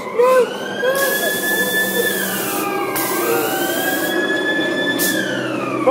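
Ghost train ride sound effects: a siren-like wail rising and falling slowly, about every three seconds, over the ride's steady running noise, with bursts of hiss and a few short squeaks near the start.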